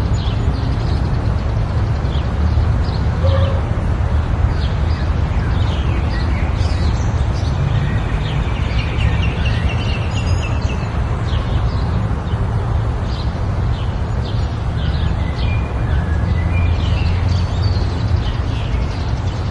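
Several small birds chirping and calling, many short notes and a few short glides, over a steady low rumble.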